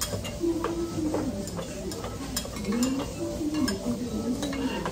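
Metal spoon and chopsticks stirring and clinking in a metal pot and against dishes, a string of short sharp clicks and scrapes, with a melody playing in the background.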